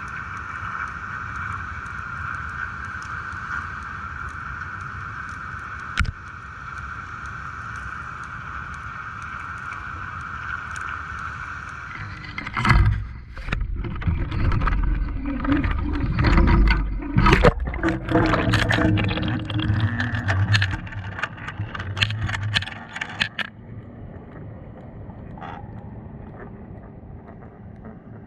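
Muffled, steady hum of a fishing boat's engine. About halfway in, a run of loud, irregular knocks, thumps and rumbles lasts about ten seconds, and then the hum continues more faintly.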